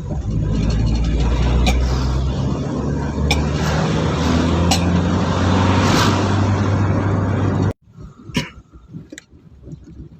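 Ambulance engine and road noise while driving, a steady low hum that shifts in pitch, with sharp clicks about every second and a half. The sound cuts off suddenly about three quarters of the way in, leaving only faint scattered noises.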